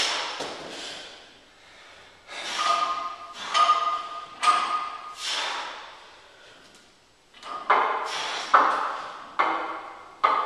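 A loaded barbell with iron plates clanking and knocking, with a metallic ring, during close-grip board presses as the bar touches down on wooden boards held on the chest. The sounds come about once a second in two runs of roughly four.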